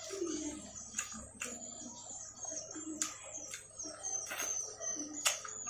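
Close-up mouth sounds of fried chicken and rice being eaten by hand: chewing with sharp wet smacks and clicks about every second, the loudest near the end. Birds chirp faintly in the background.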